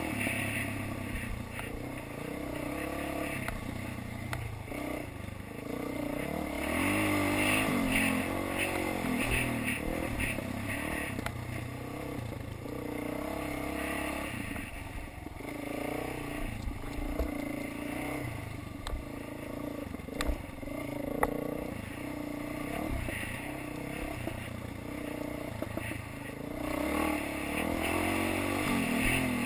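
Dirt bike engine being ridden hard, revving up and easing off over and over as the rider works the throttle along a trail. A few sharp knocks come from the bike over bumps, the clearest about two-thirds of the way through.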